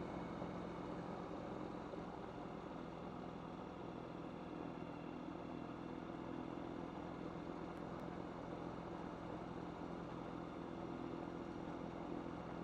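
Rotax 912UL four-cylinder, four-stroke aircraft engine and propeller running steadily in flight, an even drone with no stumbles.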